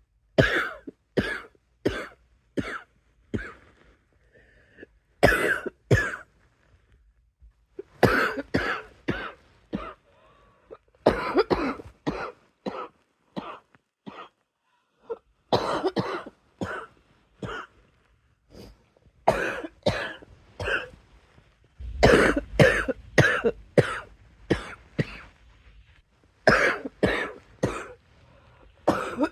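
A person in a coughing fit: runs of four to six quick coughs, one after another, broken by short pauses of a second or two and starting again, over and over.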